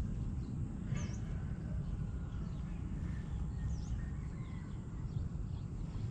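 Outdoor ambience: a steady low rumble of outdoor noise, with two short, faint bird chirps, about a second in and again near four seconds.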